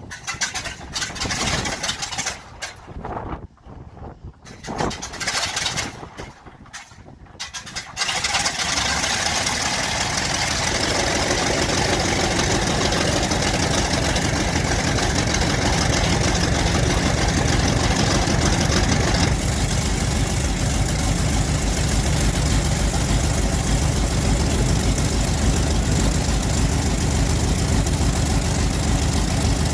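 Large WW2-era piston aircraft engine cold starting: it coughs and fires unevenly in short bursts for several seconds, then catches about eight seconds in and settles into steady, loud running.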